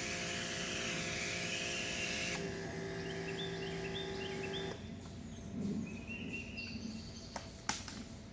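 Electric pressure washer spraying, its hiss cutting off about two seconds in while the motor hum carries on until about halfway through, then stops. Birds chirp in the background, with a click near the end.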